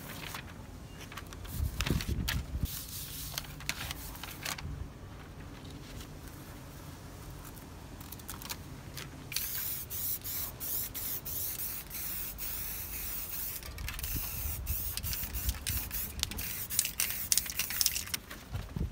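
Aerosol spray paint cans spraying: short hissing bursts early on, then near-continuous spraying in many quick bursts through the second half. There are low thuds and rustles of paper being handled about two seconds in and again during the spraying.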